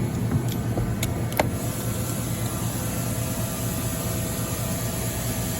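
Steady mechanical hum of a powered-up OKK MDV55 CNC vertical machining center's auxiliary units (pumps, cooler and motors) running, with a few light clicks in the first second and a half.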